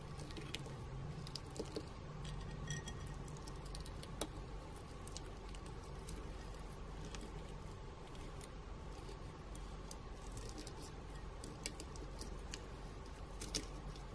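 A small plastic spoon stirring sequins, beads and glitter in a glass dish: irregular light clicks and ticking patter as the pieces and spoon tap the glass, over a faint steady hum.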